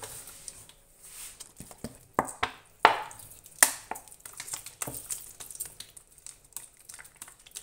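Apple cider vinegar poured from a bottle over chopped green peppers in a plastic tub: a run of irregular splashes, clicks and taps.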